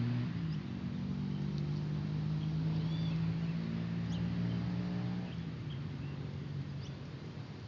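A steady low engine drone made of several even tones, which fades away about five seconds in, with a few faint high bird chirps over it.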